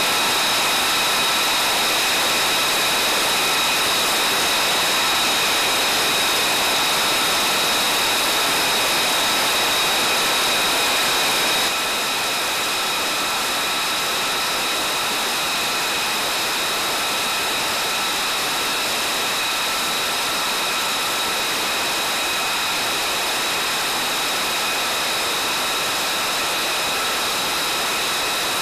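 F-35A Lightning II's Pratt & Whitney F135 jet engine running steadily: a loud rushing noise with a high whine. The level drops slightly about twelve seconds in.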